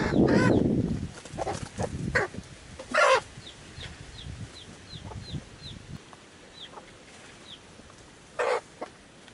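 A native mother hen clucking a few times, with her newly hatched chicks giving short, high, falling peeps in a run between the clucks. A loud rustle in the first second.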